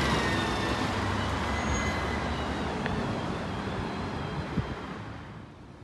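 McNeilus ZR side-loader garbage truck on a Crane Carrier LET2 chassis driving away, its engine sound fading steadily until it is faint near the end.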